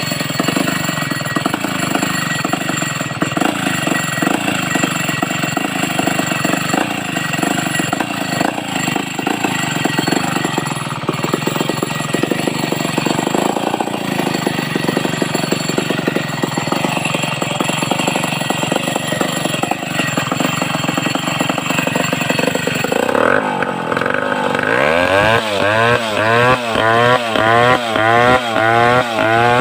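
Home-assembled Stihl 070-type two-stroke chainsaw running steadily under load as it cuts through a log. Near the end its pitch rises and then swings up and down in an even rhythm, about five times in four seconds.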